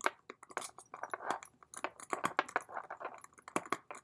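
Small hard metal parts being handled, a quick irregular run of clicks and light rattles.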